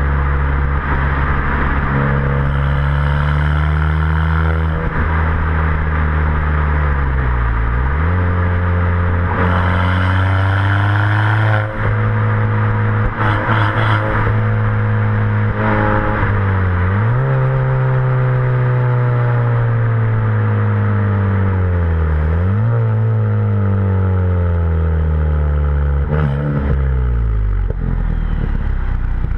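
Ford Fiesta ST180's 1.6-litre turbocharged four-cylinder heard at the tailpipes through a Milltek decat, non-resonated exhaust while driving. The engine note holds, then dips and climbs again four times as revs fall and pick up, with short bursts of crackle.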